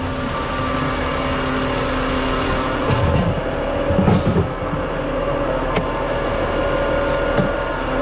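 Concrete mixer truck's diesel engine running steadily with a low hum, with a couple of dull thumps about three and four seconds in and a few sharp clicks near the end.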